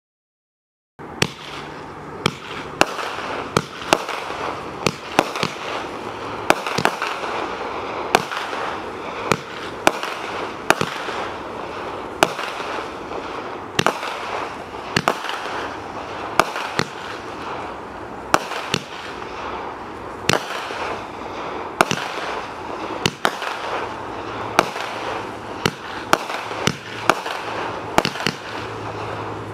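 Great Grizzly 200-gram 25-shot repeater firework cake firing: sharp reports about one to two a second over a steady rushing hiss, starting about a second in after silence.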